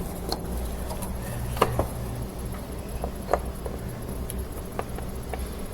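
Scattered light clicks and knocks of washing-machine console parts being handled, about seven in all and loudest about one and a half and three seconds in, over a steady low hum.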